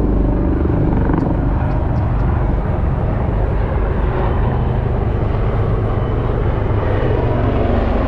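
Aircraft engine noise: a steady, loud, low rumble that holds at an even level.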